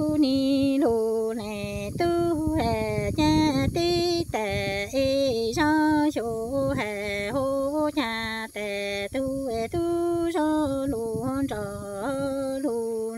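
A woman singing Hmong kwv txhiaj (sung poetry) unaccompanied. The solo voice holds long notes that step between a few pitches, with a slight waver on the held notes.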